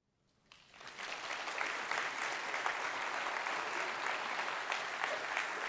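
Audience applauding: the clapping starts about half a second in, builds over the next half second and then holds steady.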